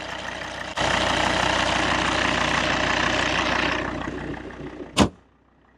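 Volvo V70's engine idling under the open bonnet, with a louder rushing noise for about three seconds that then fades. About five seconds in, the bonnet slams shut with one sharp bang, the loudest sound, after which the engine is heard only faintly.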